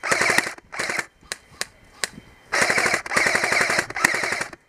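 JG AUG airsoft electric rifle firing full-auto: a short burst at the start, a second short one, a few single cracks around one to two seconds in, then two longer bursts in quick succession before it stops.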